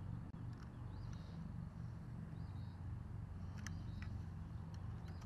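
Outdoor ambience: a steady low rumble with faint bird chirps every second or so, and a couple of small sharp clicks a little past halfway.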